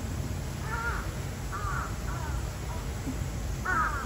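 Crows cawing: a run of short, hoarse caws, about four or five of them, the loudest near the end, over a steady low background rumble.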